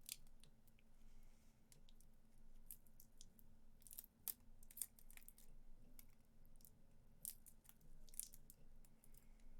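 Near silence broken by faint, scattered short clicks and light crackles, about a dozen, spread irregularly throughout.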